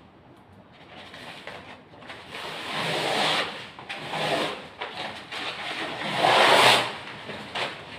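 Wallpaper being peeled and torn off a wall by hand: a few rasping pulls that grow louder, the longest and loudest near the end.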